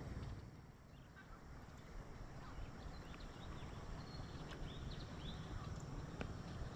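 Wind buffeting the microphone in a steady low rumble, with small birds chirping faintly from about a second and a half in.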